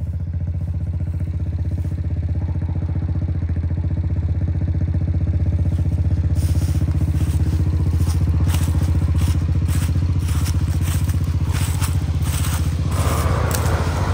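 ATV engine idling steadily close by, with scattered crackles and scrapes from about six seconds in. Near the end a second ATV's engine grows louder as it comes down the trail.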